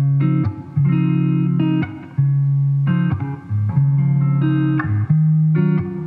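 Background music: a plucked guitar melody in sustained notes over a steady bass line.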